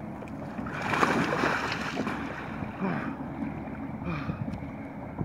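Brittle lake ice giving way under a heavy man standing on it: a loud crash and splash about a second in as he drops through into the water, then water sloshing around him.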